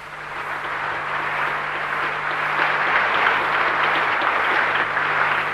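Audience applauding, the clapping swelling over the first couple of seconds and then holding steady.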